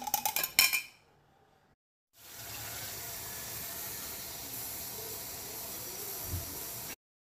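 A utensil clinking rapidly against cookware for about a second, then after a short pause a steady hiss of food sizzling in a hot pan, which cuts off abruptly near the end.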